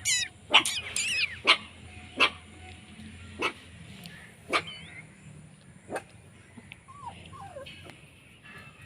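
Young puppies whimpering and yipping: a burst of high, wavering squeals at the start, short sharp yips about once a second, and a couple of falling whines near the end.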